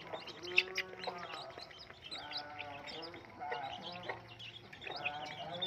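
A flock of young chickens peeping and chirping as they crowd a handful of grain, with a few longer, drawn-out calls among the short chirps.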